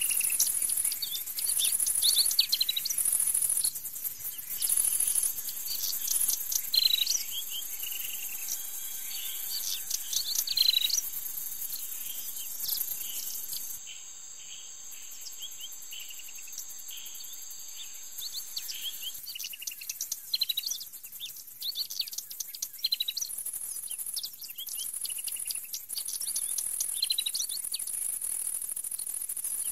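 Birds chirping in short falling notes over a steady insect chorus. The high insect buzz pulses about once a second at the start and again near the end, and changes to a single steady high whine for a few seconds in the middle.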